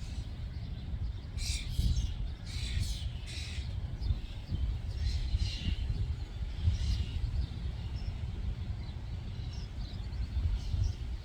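Birds chirping in short bursts, in several groups spread through the stretch, over a steady low rumble of outdoor background noise.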